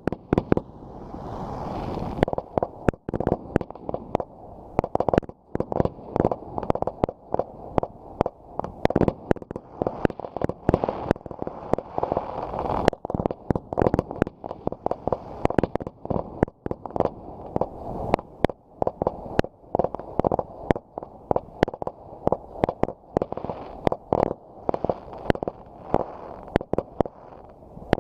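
Fireworks going off in a rapid, continuous barrage of bangs and crackles, several reports a second without a break.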